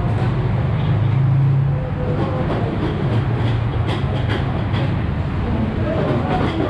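A steady low mechanical rumble, a little louder about a second in, with a few light knocks as lime halves are set down on the chicken and chillies in an aluminium pot.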